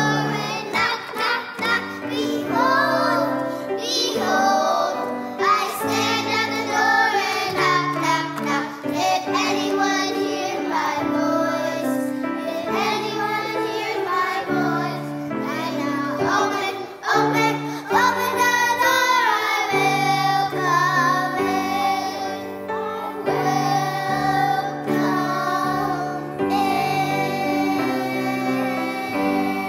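Children's choir singing in unison over instrumental accompaniment, with steady low bass notes under the voices.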